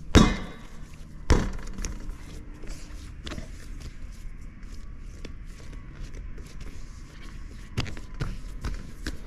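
Pizza dough slapped down on a work surface: two dull thumps about a second apart, then quiet handling noise with a couple of lighter knocks near the end.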